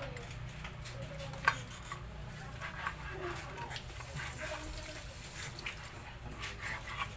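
Chef's knife cutting grilled pork belly on a plastic cutting board, with scattered taps and clicks of the blade and metal tongs against the board, and one sharp knock about a second and a half in.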